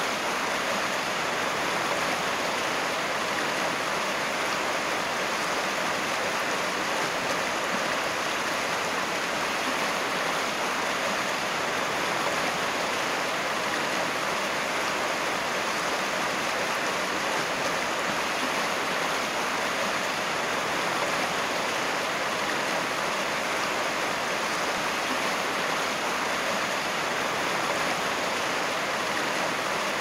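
Small rocky stream rushing and splashing over stones and little rapids: a steady, unbroken rush of water.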